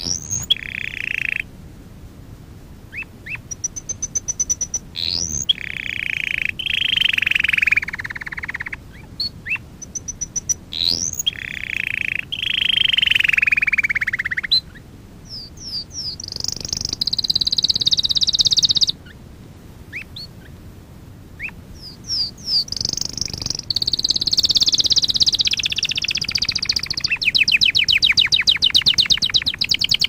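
Domestic canary singing: long rolled trills broken by short pauses, with quick upward-sweeping whistled notes between phrases and a fast run of rapidly repeated notes near the end.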